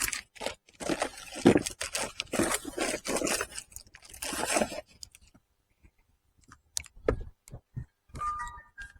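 Crinkling and rustling handling noise for about five seconds, then a few light clicks and a short run of high notes near the end.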